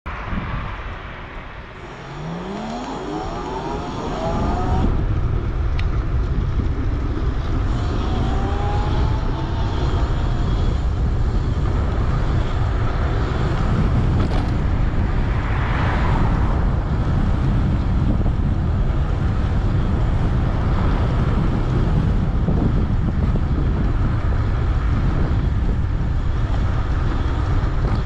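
High-power electric bike's motor whining and rising in pitch as it accelerates, about two seconds in and again around eight seconds in. Heavy wind buffets the microphone at speed.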